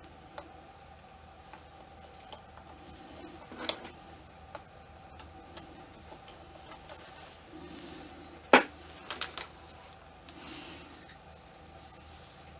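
Handling of ball-jointed doll parts: scattered light clicks and short rustles, with one sharp click about eight and a half seconds in followed by a few quicker clicks, over a faint steady hum.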